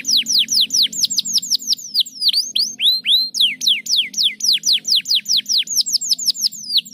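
Domestic canary singing: a fast trill of falling whistled notes, about six a second, broken about two seconds in by a few dipping and rising notes before the quick run starts again.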